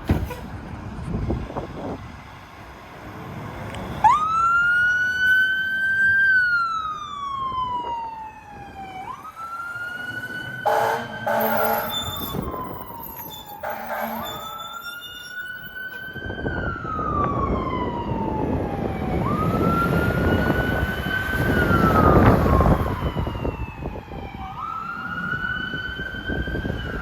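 Fire engine siren wailing, its pitch climbing fast and then falling slowly about every five seconds, with short air horn blasts near the middle. The truck's engine and road noise build under it in the second half.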